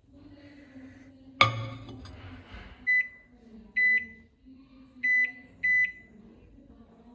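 Microwave oven door shut with a sharp clunk, then four short high beeps from the microwave's keypad as it is set and started.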